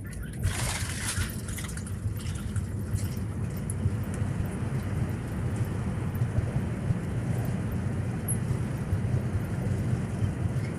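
Airbus A321 cabin noise during landing: a steady low rumble from the aircraft, with a brief rushing hiss about half a second in.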